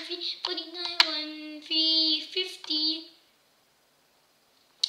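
A child's high voice in a drawn-out, sing-song chant, with a sharp hand clap about a second in. The sound cuts out to silence about three seconds in, and another clap comes just before the end.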